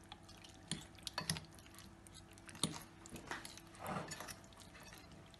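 A fork stirring chopped potato and onion into beaten eggs in a ceramic bowl, mixing potato-omelette batter. It goes with soft wet stirring and a few scattered light clinks of the fork against the bowl.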